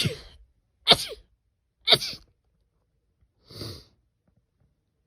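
A woman sneezing in quick succession: three sharp sneezes about a second apart, each with a voiced, falling cry, then a softer, quieter burst about three and a half seconds in.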